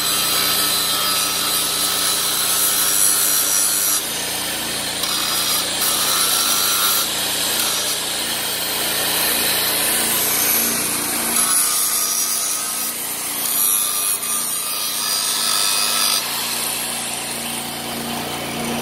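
Angle grinder with its disc pressed against the steel edge of a tractor loader bucket, grinding metal continuously; its sound shifts every few seconds, at about 4, 7, 11 and 16 seconds in.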